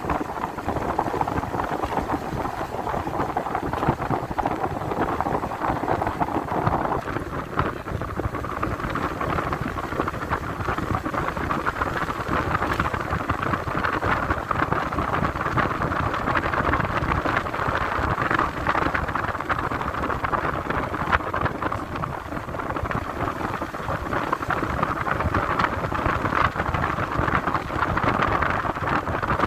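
Motorcycle engine running steadily while riding, mixed with a constant rush of wind and road noise. The engine note shifts up about seven seconds in.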